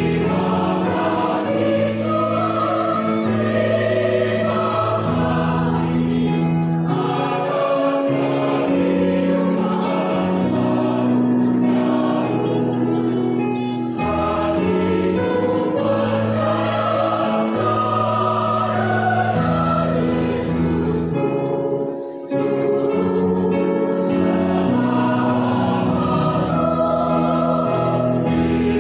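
Mixed adult choir of women's and men's voices singing in parts, holding chords that change phrase by phrase, with one short break in the sound about two-thirds of the way through.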